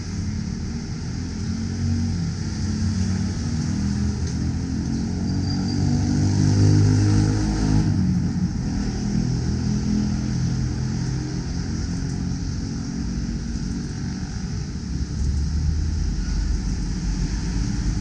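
Road traffic from the street beneath: a low, steady rumble, with a vehicle's engine swelling to its loudest about seven seconds in and then fading as it passes.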